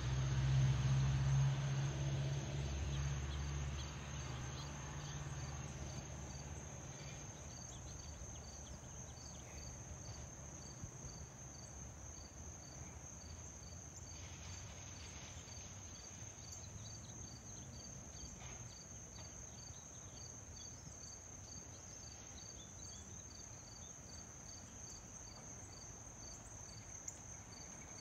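Insects trilling: a steady high-pitched drone with a regular pulsed chirp about twice a second. Under it, a low rumble fades away over the first several seconds.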